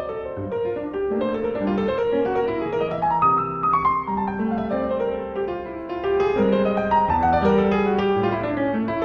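Background piano music: a gentle melody of many notes, with a run that climbs and then falls back about three seconds in.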